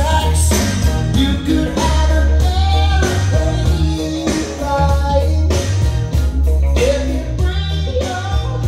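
A rock song with a singing voice, guitar and heavy bass, played back through Monitor Audio Silver 100 bookshelf speakers driven by a Denon PMA-600NE amplifier and heard in the room.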